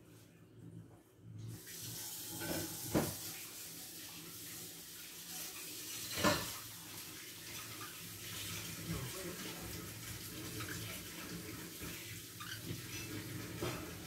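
Water running from a tap, a steady rush that starts about a second and a half in, with two sharp knocks, one about three seconds in and one about six seconds in.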